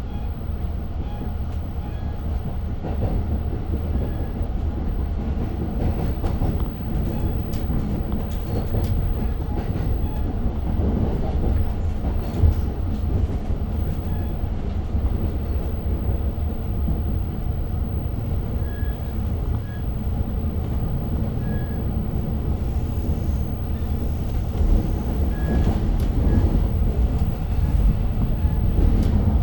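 Long Island Rail Road passenger train heard from inside the coach while under way: a steady low rumble with scattered clicks and rattles from the wheels and car body.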